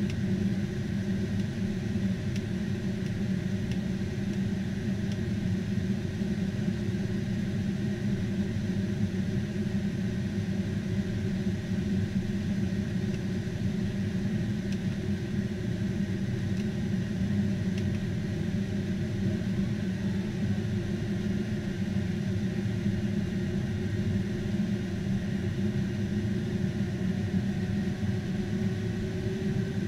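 Steady low in-flight rumble of a KC-10 Extender tanker, heard from inside at the boom operator's window during aerial refueling, with a faint steady whine above it.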